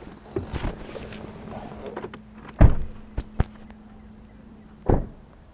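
A few sharp knocks and thuds, the loudest about two and a half seconds in and another near the end, over a faint steady low hum.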